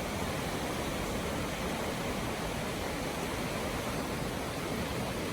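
Athabasca Falls' glacier-fed river plunging into its gorge, a steady rushing roar of falling water.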